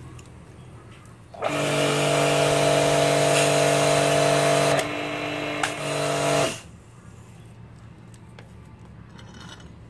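Imperial electric high-pressure washer's motor and pump start and run with a steady hum and hiss, dip in level for about a second, run on briefly, then are switched off about five seconds after starting. The machine's fault is that its pressure switch does not cut power to the motor, which the repairer puts down to a loose limit-switch holder.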